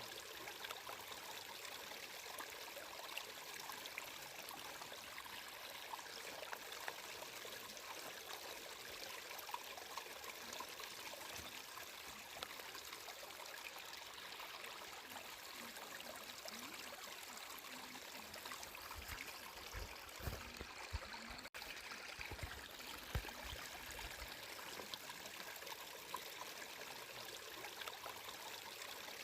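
Stream water flowing and trickling steadily, with a few soft low thuds about two-thirds of the way through and a split-second dropout among them.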